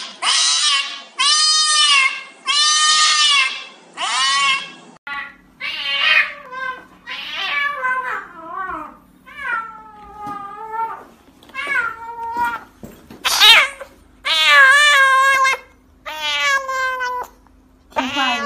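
Cats meowing and yowling loudly in distress while held for injections: four or five long drawn-out cries in the first few seconds, then after a short break a string of shorter meows of varied pitch from another cat.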